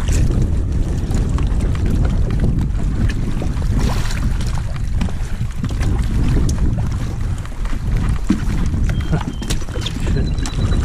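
Wind buffeting the microphone in a steady low rumble, over water sloshing against the hull of a personal watercraft. A few light knocks come from a rider climbing aboard from the water.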